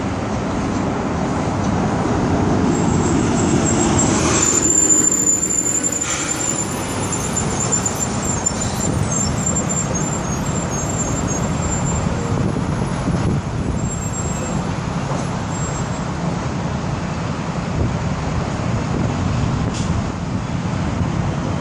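Road traffic going by: a vehicle passes, loudest about five seconds in, with a thin high whistle for several seconds around the peak, then a steady traffic hum.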